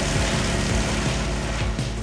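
Background music with a steady beat, over a dense hiss that thins out near the end.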